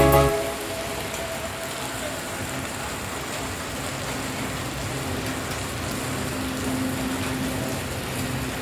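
Steady rain falling, an even hiss, with a faint low hum underneath. A music track cuts off just at the start.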